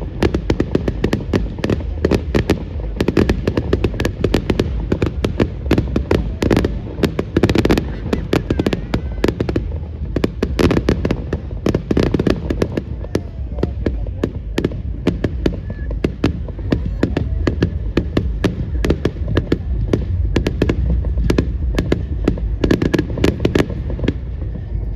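Fireworks going off in a dense, continuous barrage of sharp bangs and crackles, several a second, over a low rumble.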